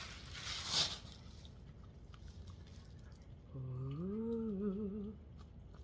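Wrapping paper rustles briefly as a package is unwrapped. About three and a half seconds in comes a closed-mouth 'mmm' hum, low and rising in pitch, wavering at the end and lasting about a second and a half.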